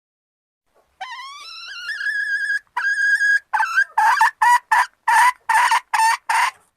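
Female junglefowl calling to solicit mating. A long note rises and levels into a held tone, then gives way to a quick run of about nine short, harsh calls.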